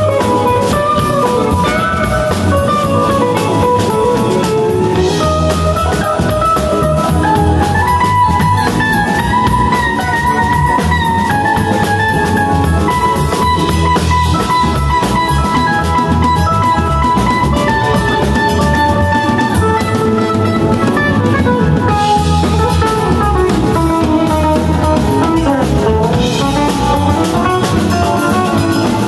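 Live rock band playing an instrumental passage: electric guitar lines over a drum kit, bass and keyboards.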